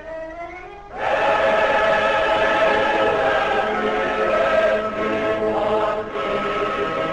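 Choir singing long held chords as soundtrack music, coming in strongly about a second in, with a short break near the end.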